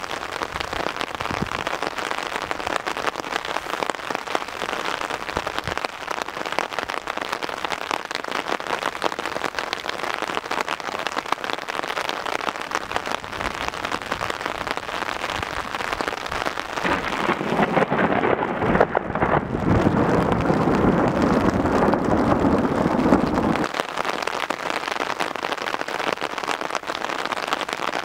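Heavy rain falling steadily. About two-thirds of the way in, a low roll of thunder builds and runs for around six seconds, then cuts off suddenly.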